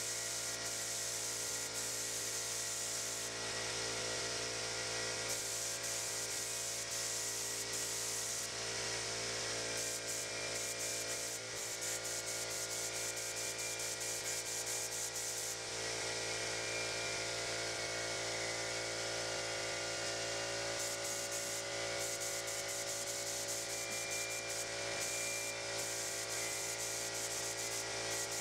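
Air-driven gravity-feed spray gun hissing as it sprays paint, the hiss cutting in and out repeatedly with the trigger. A steady machine hum runs underneath.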